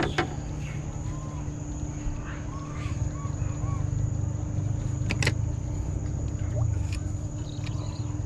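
Steady night-time chirring of insects, likely crickets, over a low continuous rumble, with one sharp click about five seconds in.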